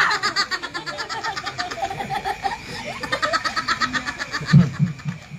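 A boy laughing hard and uncontrollably in rapid, high-pitched ha-ha-ha runs of about six or seven pulses a second. A few louder, deeper laughs come near the end.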